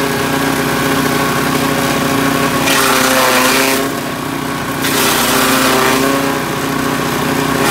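Grass chopper's blades shredding leafy branches fed into the hopper, driven by a small pull-start petrol engine running steadily. Two bursts of chopping noise come about three and five seconds in, over the steady engine note.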